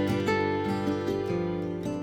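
Background music: acoustic guitar, plucked and strummed notes at a gentle pace.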